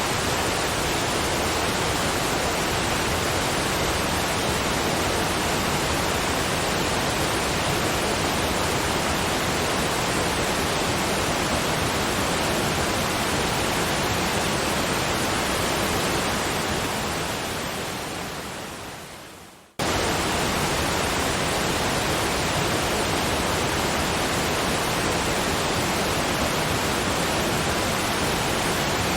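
Steady, even rushing of a waterfall that fades away over a few seconds about two-thirds through, then cuts straight back in at full level.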